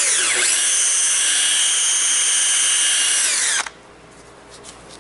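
Power drill spinning a 3M Trizact 3000-grit sanding disc against a plastic headlight lens, wet-sanding it. The motor whine rises as it spins up, runs steady, and stops suddenly about three and a half seconds in.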